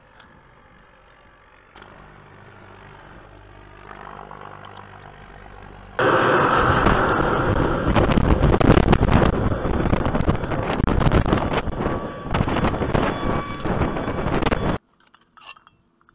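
A low, steady engine hum. About six seconds in, a loud rush of noise full of clattering clicks sets in suddenly and cuts off abruptly near the end.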